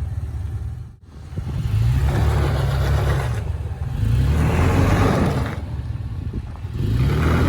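Off-road 4x4's engine revving up in three surges as it is driven back and forth over rocks, each surge rising and falling over a second or two.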